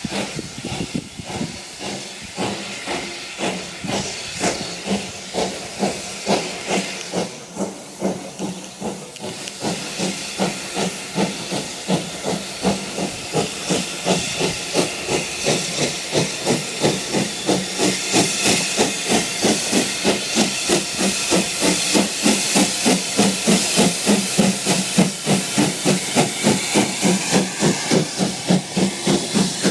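LNER Q6 0-8-0 steam locomotive working hard as it pulls away, its chimney exhaust beating in a steady rhythm over a hiss of steam. The beats quicken and get louder as it gathers speed and draws near.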